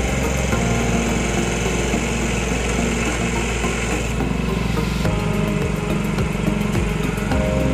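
Small gasoline engine of a hydraulic pump set running steadily, its tone shifting slightly about halfway through.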